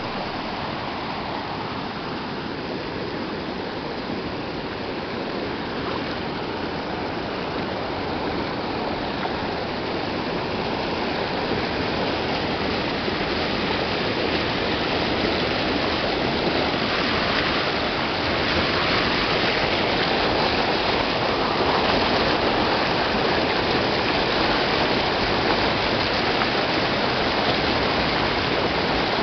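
Monsoon floodwater rushing in a shallow, foaming sheet over rock in a desert canyon creek. The sound is a steady rushing that grows gradually louder over the second half.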